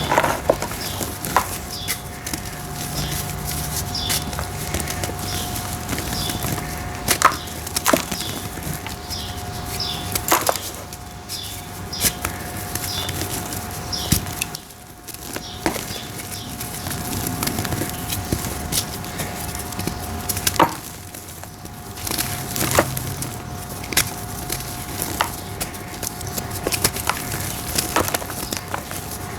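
Dry red brick dirt shapes crumbling and crunching, with a sharp crack every few seconds as pieces snap apart. A faint steady hum runs underneath.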